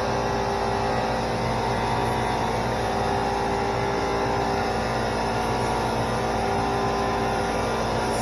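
LVLP gravity-feed spray gun hissing air as it sprays clear coat at 33 PSI, over a steady motor hum. The sound holds even, with no breaks.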